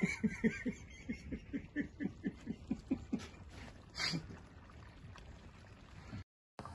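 Laughter: a fast run of short 'ha-ha' pulses that trails off over about three seconds, followed by a brief breathy sound about four seconds in.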